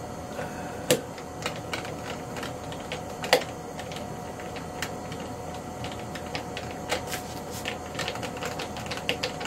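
Irregular clicks and taps of a small screwdriver working a wing-retaining screw into a foam RC jet's wing mount, with a sharper click about a second in and another louder one a little after three seconds. The screw is not catching its thread.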